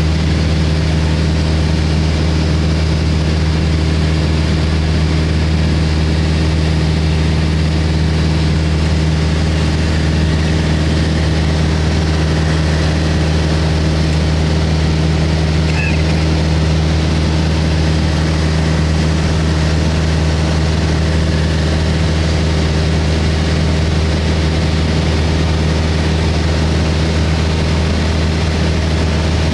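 Small propeller airplane's engine and propeller running steadily in flight, heard from inside the cabin as an even, loud drone with no change in pitch.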